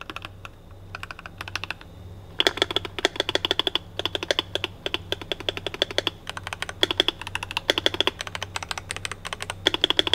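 Typing on a Royal Kludge RK84 mechanical keyboard with yellow switches, light and near-linear like red switches: sparse key clicks for about two seconds, then fast runs of keystrokes broken by short pauses.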